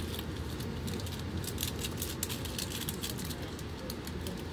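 Amtrak Silver Meteor passenger coach rolling along the track, heard from inside the car: a steady low rumble with many light, irregular clicks and rattles.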